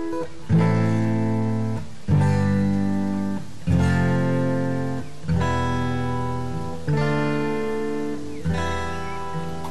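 Background music: an acoustic guitar strumming chords, a new chord struck about every second and a half and left to ring.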